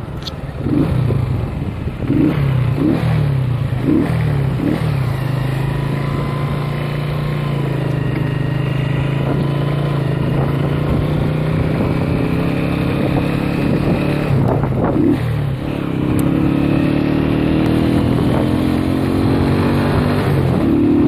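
Motorcycle engine running steadily under way. The engine note dips briefly about fifteen seconds in, then pulls again a little higher.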